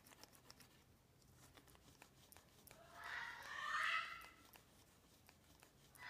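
Congo African grey parrot giving one soft, warbling vocalization about three seconds in, several pitches bending up and down together. Before it, only faint scattered clicks.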